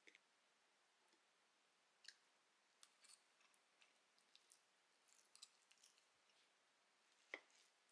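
Faint, scattered clicks of a metal fork against a ceramic dish as cheese-filled buns are picked apart, over near-silent room tone, with one louder click near the end.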